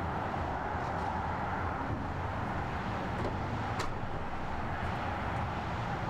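Steady outdoor ambient noise: an even hiss over a low rumble, with a few faint ticks.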